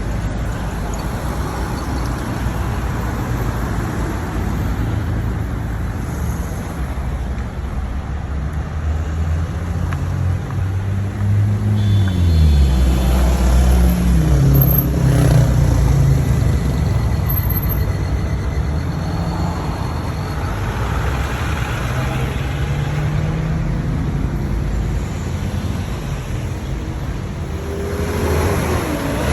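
Street traffic in a jam: car and truck engines running at low speed, with one engine's pitch rising and falling about halfway through as a vehicle pulls forward.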